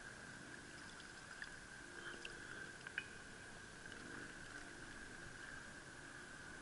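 Faint water sounds and soft clicks as a largemouth bass is handled and lifted out of the water, with small drips, over a steady faint high hum.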